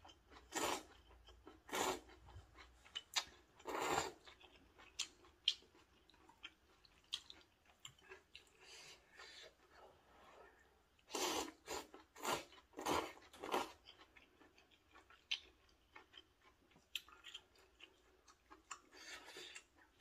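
A person slurping noodles from a bowl of soup and chewing them. The loud slurps come in clusters: three in the first four seconds, four more around the middle, and one near the end, with soft wet chewing clicks between them.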